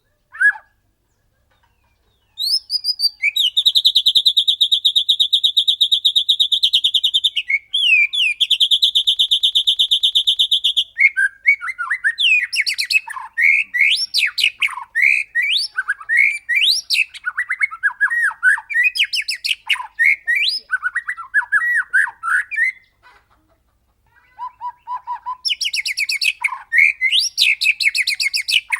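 White-rumped shama singing. It gives two long, very fast rattling trills on one high pitch, then a varied run of swooping whistled phrases, and after a brief pause another rapid trill near the end.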